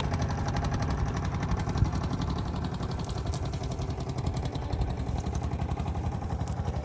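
A small engine running steadily with a fast, even beat, with one sharp knock about two seconds in.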